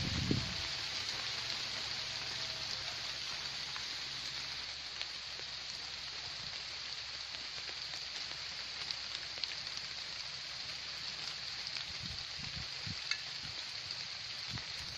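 Steady hiss of light rain falling on leaves, with a few faint drop ticks scattered through it and some soft low thumps near the end.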